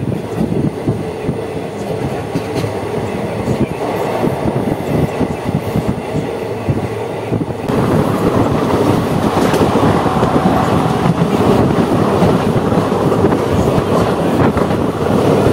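Passenger train coach running along the track, heard from its open doorway: a continuous rumble and rattle of wheels on the rails that gets louder and fuller about halfway through.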